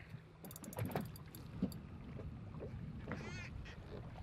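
Sound on board a small fishing boat at sea: a steady low rumble of boat and water with some wind, and a few sharp clicks and knocks about a second in while a tuna is being fought on a spinning rod. A short wavering high sound comes about three seconds in.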